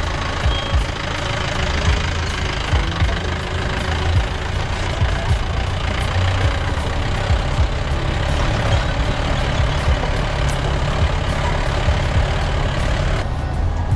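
A car driving over a rough, rocky dirt road: the engine runs steadily under the noise of the tyres on loose gravel and stones, with frequent sharp knocks and rattles from the jolting.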